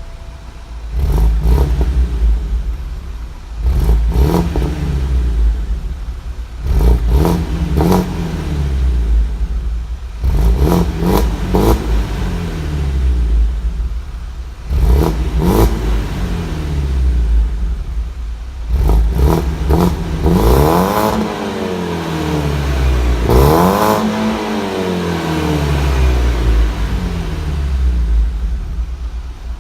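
BMW 120i E87's N46 2.0-litre inline-four through its stock exhaust, revved in a series of short blips that rise and fall back, then two longer, higher revs near the end.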